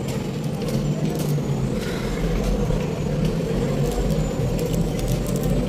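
Steady low rumble of city street noise, with a few faint clicks and rustles of paper being handled.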